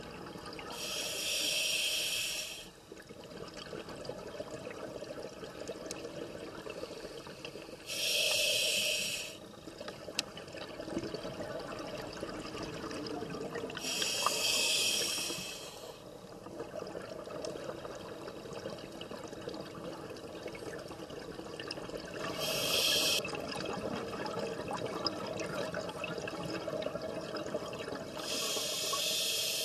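Scuba diver breathing through a regulator underwater: five bursts of exhaled bubbles, one to two seconds each and six to eight seconds apart, with a quieter low hiss between them.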